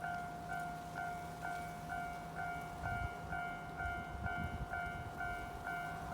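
Japanese railway level-crossing warning bell ringing steadily, a two-pitched ding repeating about twice a second. About halfway through the low rumble of a passing Kawagoe Line train joins it.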